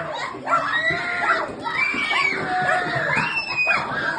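Children screaming, several high voices at once in rising and falling shrieks.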